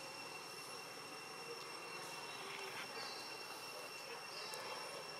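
Steady high insect drone in two even tones, with a few short high chirps over it.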